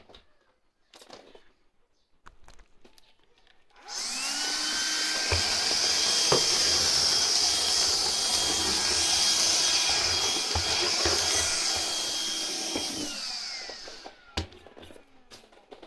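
Cordless window vacuum switched on, its motor whine rising to speed, running steadily for about nine seconds, then switched off and spinning down. A few light knocks are heard while it runs.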